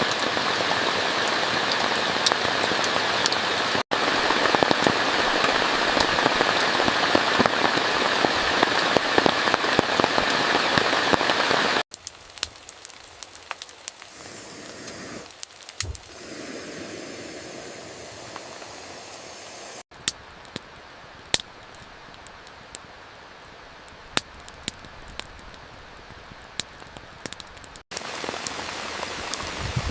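Heavy rain falling steadily. It breaks off abruptly into quieter stretches of lighter rain with scattered sharp clicks and a single low thump, then the loud rain hiss returns near the end.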